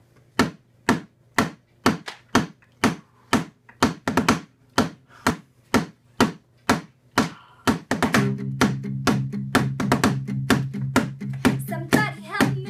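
An a cappella groove made by mouth: a steady beatboxed beat of about two sharp clicks a second, filled in with extra off-beat clicks from about four seconds in. At about eight seconds a low hummed bass note joins and holds, and a voice starts near the end.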